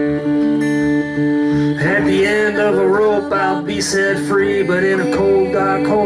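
Acoustic guitar playing a sustained chord. A voice begins singing about two seconds in, over the guitar.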